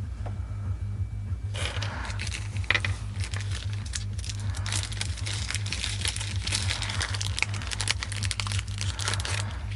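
Packaging crinkling and rustling as it is handled and opened, a dense run of crackles starting about a second and a half in, over a steady low hum.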